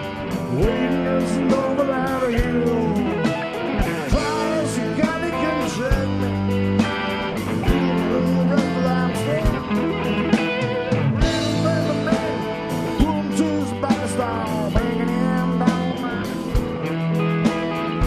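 Live southern rock band playing: electric guitar, bass and drum kit with steady drum hits, and a lead line of bending, sliding notes over the top.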